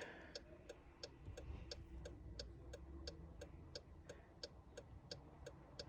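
Faint, steady ticking of a 2016 Jeep Laredo's hazard-light flasher, about four ticks a second, with the hazards switched on.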